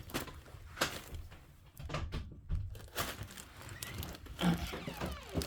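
A few light knocks and rustling at irregular intervals.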